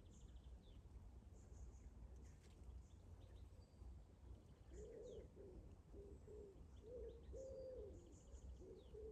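Faint outdoor birdsong: small birds chirping and trilling high up, and from about halfway a bird's low, repeated cooing, over a soft low rumble.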